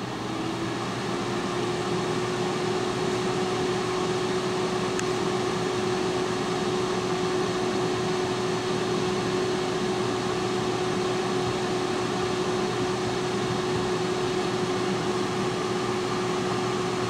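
T-fal digital air fryer's fan spinning up, a rising whine that settles about a second in, then running steadily with an even whoosh of air and a constant hum.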